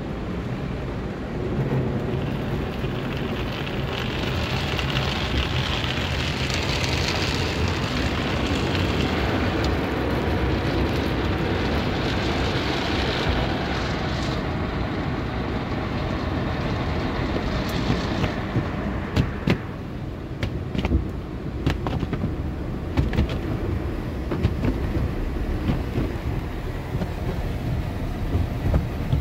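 Automatic car wash heard from inside a truck's cab with the engine off: a steady rush of water spraying and drumming on the windshield and body, with a hiss that swells for most of the first half. From about two-thirds of the way in, the wash brushes slap against the truck in a string of sharp, irregular knocks.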